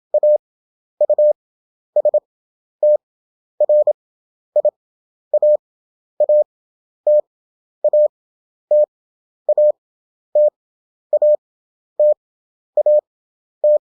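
Morse code practice tone: a single steady tone keyed in dots and dashes. Each character is sent fast, at 27 words per minute, with long gaps between characters (Farnsworth spacing, 11 wpm effective), so about one character sounds per second.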